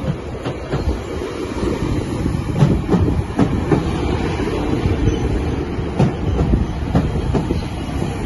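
GO Transit bilevel passenger coaches rolling past: a steady low rumble of steel wheels on rail, with irregular sharp clacks from the wheels, several of them coming in pairs.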